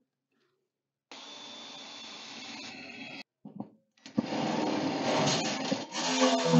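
Cordless drill running steadily with a thin high whine as it bores a pilot hole through sheet steel. From about four seconds in, a Ryobi cordless driver with a step drill bit cuts into the same hole, louder and rougher, widening it through the steel.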